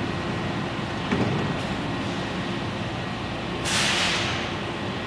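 Washington Metro railcar standing at the platform with its equipment running steadily. Its side doors shut with a short thump about a second in. Near the end comes a loud hiss of air that fades over about a second, as the air brakes release before the train departs.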